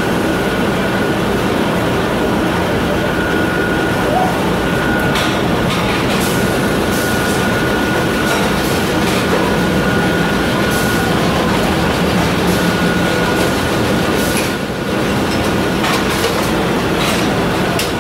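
Tire strip-cutting machine running steadily, its shaft spinning a stack of rubber tire rings against the cutter: a loud, even mechanical clatter with a thin high whine and scattered clicks.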